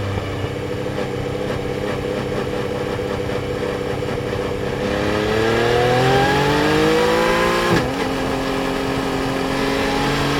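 Yamaha Tracer 900 GT's three-cylinder engine under way, holding steady revs, then accelerating with a rising pitch for about three seconds. The pitch drops sharply at an upshift about eight seconds in, and the engine then runs steady at lower revs.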